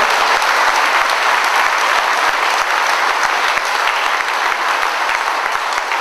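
Audience applauding steadily, a dense clatter of many hands clapping that eases off slightly near the end.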